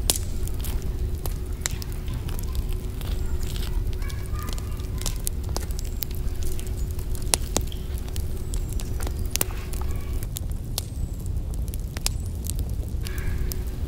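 Wood fire crackling, with many irregular sharp pops over a low steady rumble.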